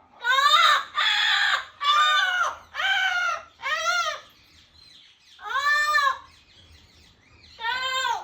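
Double yellow-headed amazon parrot calling loudly: seven arching, pitched squawks of about half a second each, the first four in quick succession, then longer pauses before the last two.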